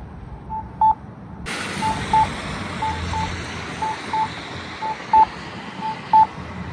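Campbell accessible pedestrian signal push-button sounding its locator tone: short beeps at one pitch, a soft one followed closely by a louder one, about once a second, the signal for waiting pedestrians to find the button. From about a second and a half in, a steady rush of street noise rises under the beeps.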